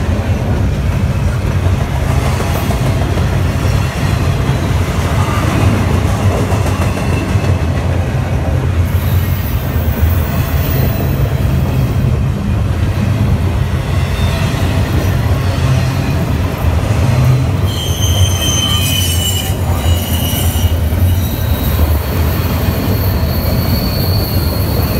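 CN double-stack intermodal freight train rolling past: the container well cars' wheels run on the rails in a steady, loud rumble. Thin high-pitched wheel squeals come and go in the second half.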